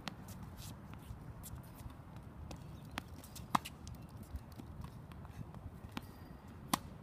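Tennis balls being hit and bouncing: scattered sharp knocks over faint background noise. The loudest comes about three and a half seconds in, and another comes near the end.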